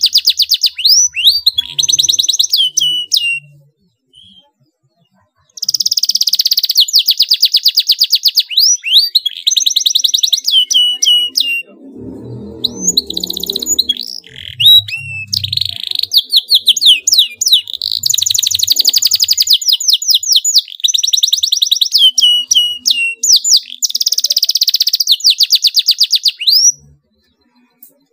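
Domestic canary singing in long, very fast trills ('tight rolls') broken by quick sweeping notes, with a pause of about two seconds near the start. A brief low rumble sits under the song about halfway through.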